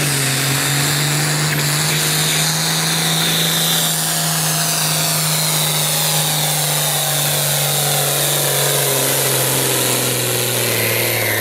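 International Harvester pulling tractor's engine running hard under full load as it drags a weight-transfer sled, a loud, steady engine note. Its pitch drops slightly near the end.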